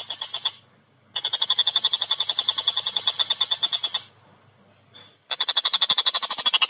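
A tengkek buto kingfisher giving its rapid chattering call, a fast run of over ten sharp notes a second. The chatter comes in bursts broken by two short pauses.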